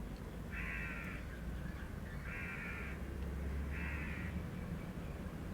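Three short calls from a bird, evenly spaced about a second and a half apart, over a low steady hum.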